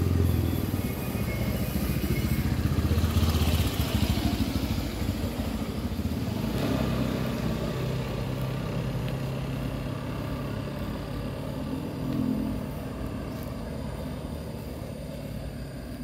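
Small motorcycle or motor scooter engine running as it rides along and passes. It is loudest in the first few seconds, then slowly fades.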